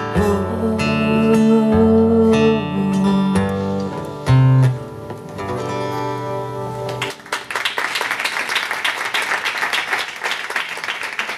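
Acoustic guitar playing the closing bars of a song, with a deep bass note a little after four seconds in and the last notes ending about seven seconds in. Audience applause follows.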